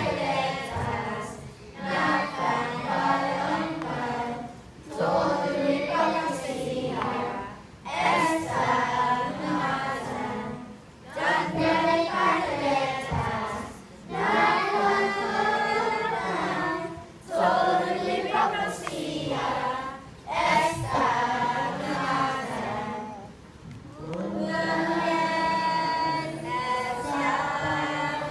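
Children's choir singing in phrases of a few seconds with short breaks for breath, the last phrase held longer.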